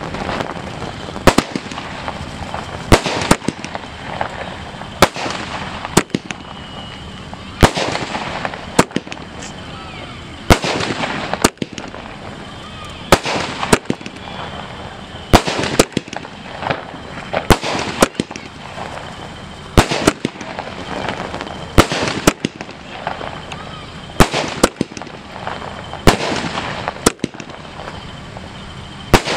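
A multi-shot aerial firework cake firing: sharp bangs of shells bursting overhead, about one a second at uneven spacing, over a steady crackle of sparkling stars.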